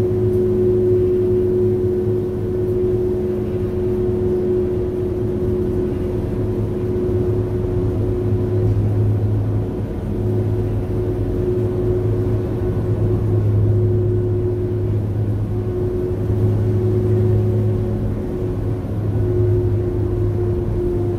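Staten Island ferry's engines running with a steady low drone and an even hum tone above it, as the boat eases into its slip to dock.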